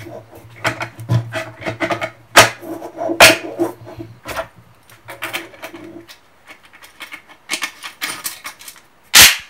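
Remington 870 pump shotgun being put back together by hand: a run of metal clicks and clacks as the barrel is seated in the receiver and the magazine cap and forend are worked, with a louder clatter just before the end.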